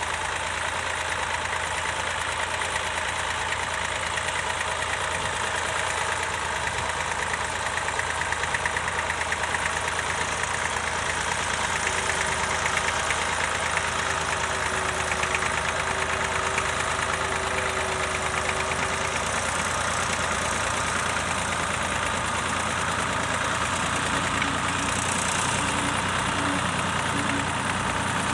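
Tractor engine running steadily at an even speed. A faint steady whine joins in for several seconds midway.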